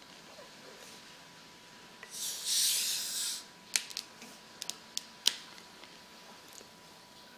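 A carbonated drink being opened: a hiss of escaping gas lasting about a second and a half, followed by several sharp clicks.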